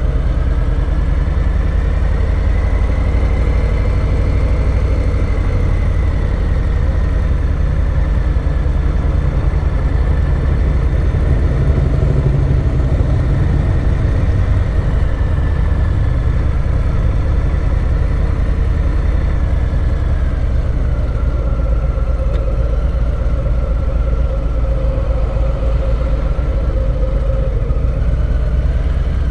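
Harley-Davidson Low Rider's V-twin engine running steadily at low road speed, a heavy low engine note with a faint higher whine that drifts slowly in pitch.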